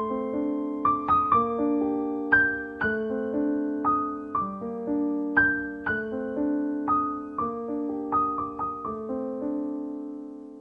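Background piano music: single notes and chords struck about twice a second, each left to ring and fade.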